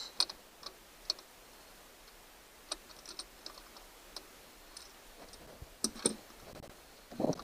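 Scattered light clicks and taps of hand tools working on the distributor of a MerCruiser 3.0 L engine. The clicks come a little louder about six seconds in, and a duller knock follows near the end.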